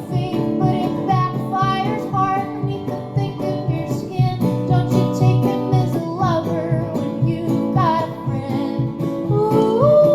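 Music: a woman singing over acoustic guitar.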